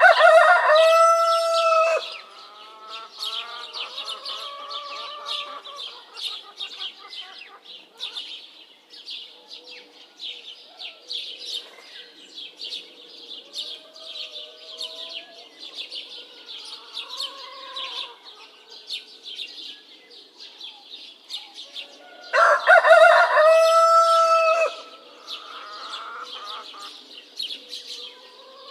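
A rooster crows twice, about twenty seconds apart, each crow lasting about two seconds. Between the crows, small birds chirp without a break, and there is quieter clucking.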